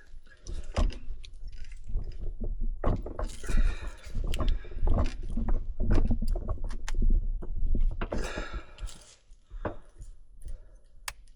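Scattered clicks, knocks and rustling from hands and tools working on hoses and fittings in a car's engine bay, loudest in short bunches about three, five and eight seconds in.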